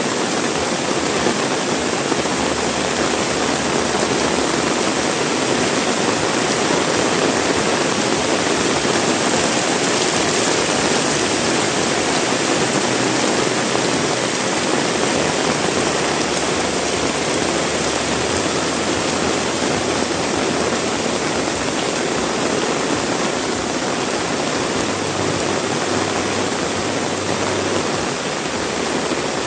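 Heavy rain pouring steadily, a dense, even hiss of water with no let-up.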